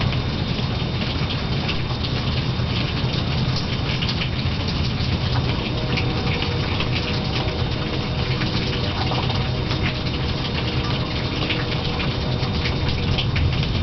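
Heavy rain falling steadily, with a dense patter of drops and drips over a steady low rumble.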